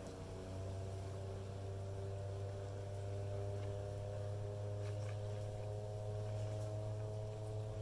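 Honey bees buzzing around the hive entrance: a steady drone of several overlapping pitches, over a low steady hum.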